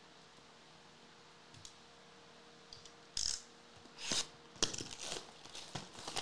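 Plastic shrink wrap on a sealed trading-card hobby box being slit with a cutting tool and torn off, in a run of short crinkling rips starting about three seconds in.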